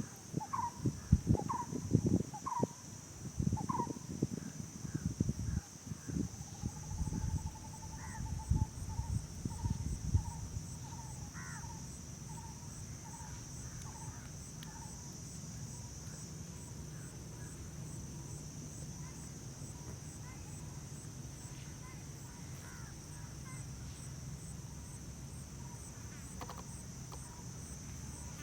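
Wild outdoor ambience of insects droning steadily at a high pitch, with a fast pulsing chirp, and a bird calling over and over. In the first ten seconds there are loud low rustles and knocks, and after that a steady low hum.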